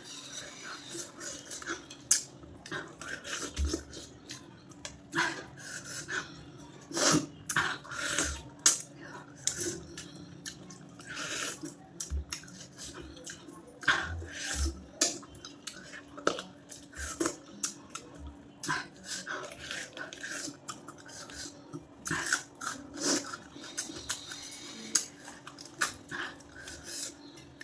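Close-up eating sounds of a person eating goat-head curry and rice: chewing and mouth smacking, with many irregular sharp clicks throughout. A faint steady hum runs underneath.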